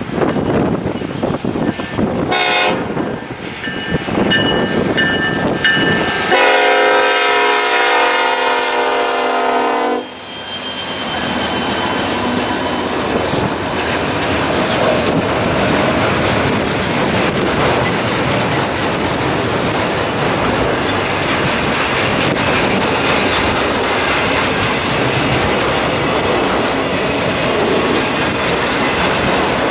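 Union Pacific diesel locomotive blowing its horn on the approach, the loudest and longest blast ending about ten seconds in. Then the steady rumble and clickety-clack of a long train of autorack freight cars rolling past close by.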